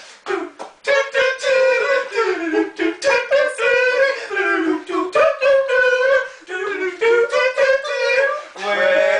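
Male voices singing a tune without words, with held notes that slide up and down, mixed with short vocal percussion clicks, like a mouth-made backing beat.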